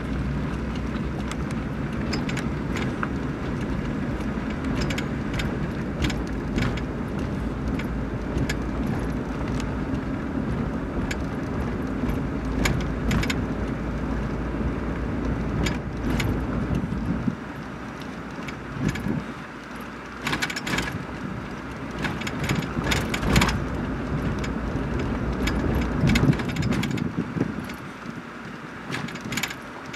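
Car driving slowly, a steady low rumble of engine and tyres with scattered light rattles and clicks. The rumble drops away about two-thirds of the way through and again near the end.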